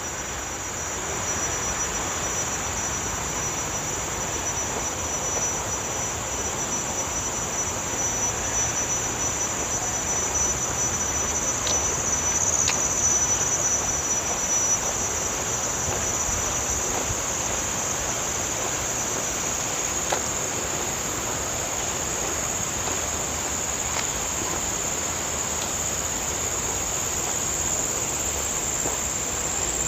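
Steady high-pitched insect chorus in tropical forest, with a second high insect tone that stops about two-thirds of the way through, over a low rushing noise.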